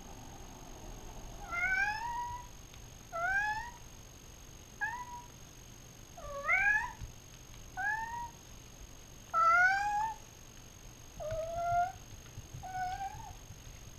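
A cat meowing over and over: about eight short calls a second or so apart, each rising in pitch, the last few quieter.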